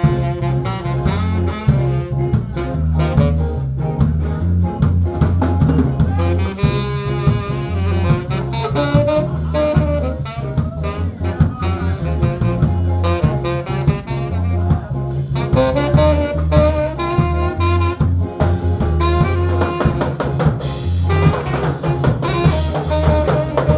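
Live ska band playing, a saxophone soloing over bass and drum kit.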